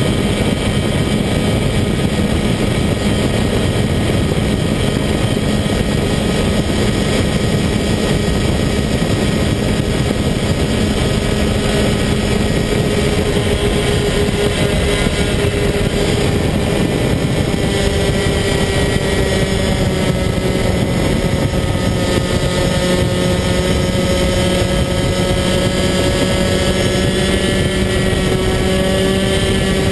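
Rotax DD2 racing kart's 125cc two-stroke engine at high revs, heard onboard at full race pace. Its pitch rises and falls slowly through the corners.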